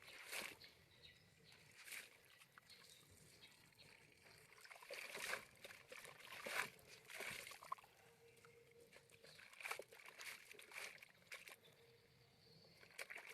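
Faint, irregular sloshing and splashing of water, typical of towels being washed by hand.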